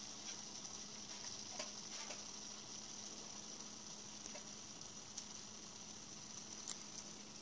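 Faint steady high hiss with a low hum underneath and a few small scattered ticks: room tone and recording noise.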